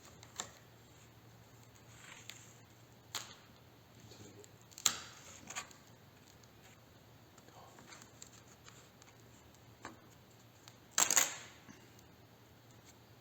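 Workbench handling noises: a steel ruler and tape being worked on a sanding block, with scattered sharp clicks and taps. The loudest tap comes about five seconds in, and a short rough crackle comes around eleven seconds.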